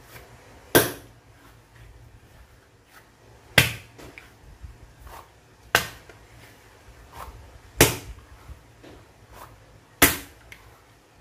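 Soft, sticky bread dough slapped down hard onto a silicone kneading mat five times, about every two seconds, with faint pressing and folding sounds between the slaps. The slapping stretches the dough to develop its gluten.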